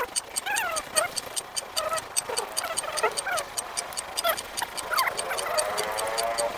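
Short sliding animal chirps over a steady, rapid high ticking of about five ticks a second, with a longer rising pitched call near the end.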